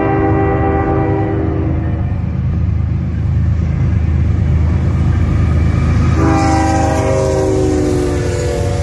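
CN diesel freight locomotive's air horn sounding over the steady low rumble of the approaching train. One blast cuts off about two seconds in, and a second long blast starts about six seconds in and drops in pitch as the locomotive passes close by.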